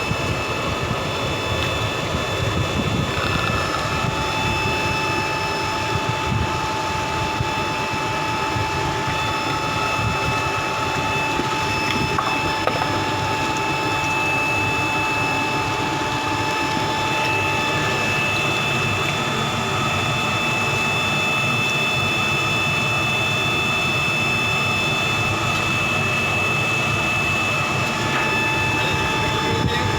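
Steady machine drone with several constant high whining tones over it, unchanging throughout.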